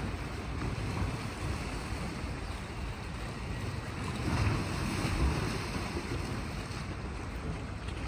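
Gentle sea waves washing on a rocky shore, mixed with wind rumbling on the microphone; the sound swells briefly about four to five seconds in.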